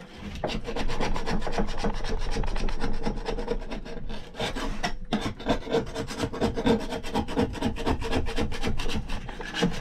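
Flat scraper blade scraping old silicone sealant off a metal mast foot in quick, rasping strokes, about five a second, starting about half a second in.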